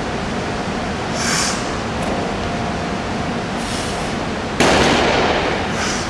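A heavily loaded barbell, about 530 lb on bumper plates, set down on the lifting platform at the end of a deadlift rep: a sudden loud thud with a short rattle dying away, about three-quarters of the way through. Underneath is a steady background hum.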